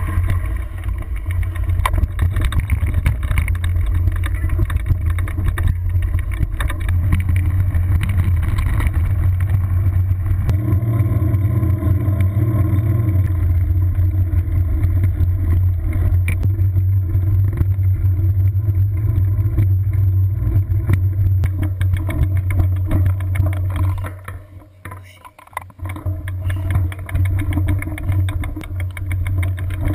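Wind buffeting a bicycle-mounted camera's microphone, over the rumble and rattle of a loaded bicycle rolling over a rough gravel track. It dips briefly near the end.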